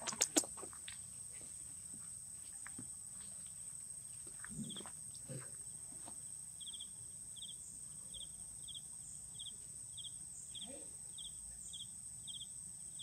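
Steady high-pitched insect drone of cicadas or crickets. From about halfway through, a short trilled chirp repeats roughly every half second, and a few sharp clicks sound right at the start.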